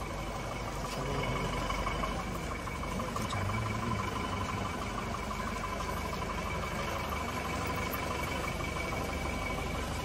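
Truck engine running at a slow crawl, with a steady, even rumble and a thin steady whine above it, over a general outdoor crowd hubbub.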